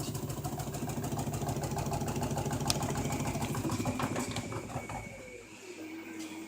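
LG washing machine's motor running with a fast, even rattle and a low hum, then winding down about five seconds in as its pitch falls.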